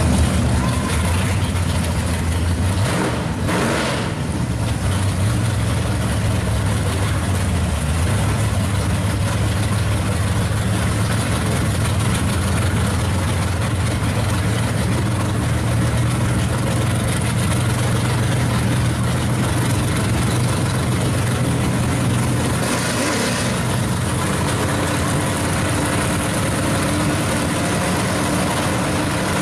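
Drag-race Chevy Camaro engines idling at the starting line, a steady low drone.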